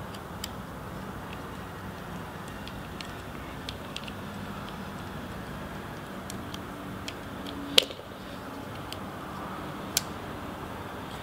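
Small metal clicks and ticks of a screwdriver bit driving a small screw into the back of a folding knife's handle, with a sharper click nearly eight seconds in and another about ten seconds in.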